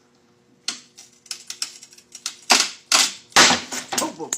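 A geode being cracked open: a run of sharp stony clicks and snaps, turning into heavier crunching and grinding about halfway through.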